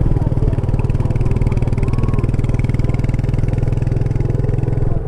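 Royal Enfield Meteor 350's single-cylinder engine running steadily under way, its exhaust beat even and strong.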